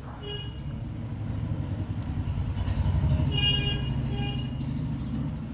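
A motor vehicle going by, its engine rumbling and swelling to its loudest about three seconds in before easing off. A vehicle horn toots briefly near the start and again for about half a second in the middle.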